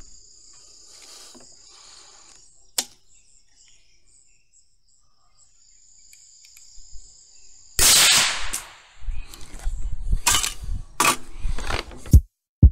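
Crickets trilling steadily, then about eight seconds in a single shot from a 6mm ARC bolt rifle, loud and sudden with a short echoing tail. Several sharp clicks and knocks follow over the last few seconds.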